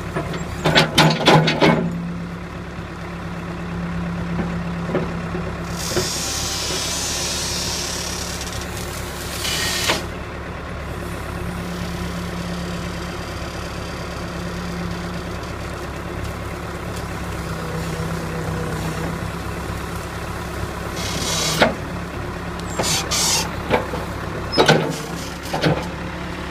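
John Deere backhoe loader's diesel engine running steadily as the boom and bucket work through reeds, its note strengthening in stretches. Clusters of sharp knocks and clanks come near the start and again in the last few seconds.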